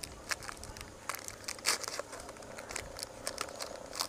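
Clear plastic packaging bag crinkling as hands squeeze and turn it, a stream of irregular small crackles with the cables rustling inside.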